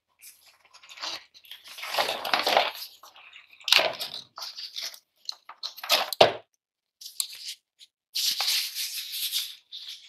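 Packaging wrap rustling and crinkling as hands pull a computer mouse out of its white wrapping and box, in several irregular bursts, the longest near the end.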